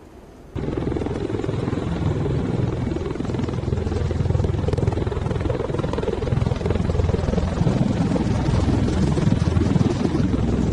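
V-22 Osprey tiltrotor aircraft in flight: its proprotors and turbine engines make a dense, steady, deep rotor rumble that cuts in abruptly about half a second in.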